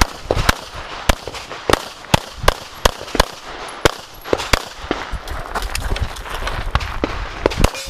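Rapid CZ 75 pistol fire during a practical-shooting stage: a dozen or more sharp shots, irregularly spaced, several in quick pairs, with short gaps between strings.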